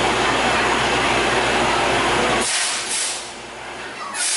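High-power air compressor running for borewell cleaning: a steady engine hum under a loud rush of compressed air and water blasting out of the bore. About two and a half seconds in, the hum and rush drop away, and a hissing rush comes back near the end.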